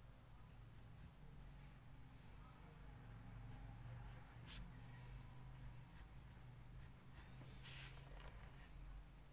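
Pencil scratching on paper in short, light strokes as small lines are drawn, faint over a low steady hum.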